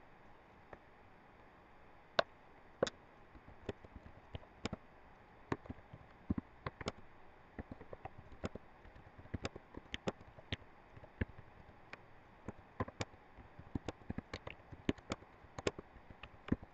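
Typing on a computer keyboard: irregular single keystroke clicks, one to a few a second, over a faint steady hiss.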